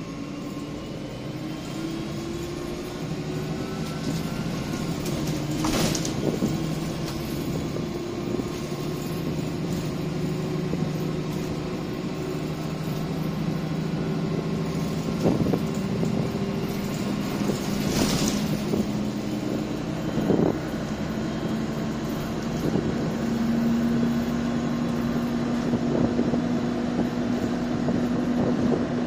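MAN 18.240 single-deck bus heard from inside the saloon while under way: its six-cylinder diesel engine pulls with a pitch that rises slowly and steps up higher later on, over road noise and body rattles. Two sharp knocks stand out, one about six seconds in and another about eighteen seconds in.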